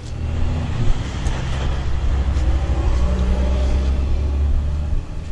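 A motor vehicle's engine running close by, a steady low engine sound that drops away near the end.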